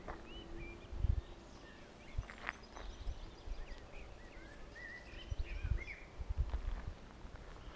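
Small birds chirping and twittering, short quick calls, with scattered low thuds in the background.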